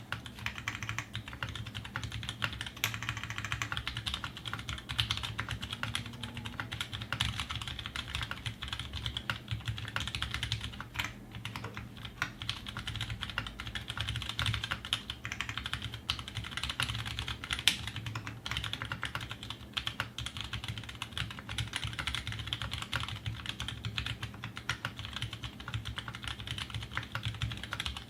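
Fast, continuous typing on a custom 60% mechanical keyboard (Aquaria aluminium case and plate, GMK Laser keycaps, Halo Ergo tactile switches with Cherry MX Clear stems): a steady stream of key clacks with a low thock under each keystroke, and one sharper, louder hit about ten seconds from the end.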